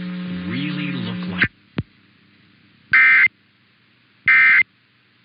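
Broadcast program audio over a steady hum cuts off abruptly about a second and a half in, followed by a click. Then come two short, identical bursts of EAS SAME data tones about a second apart: the end-of-message (NNNN) signal that closes an Emergency Alert System test.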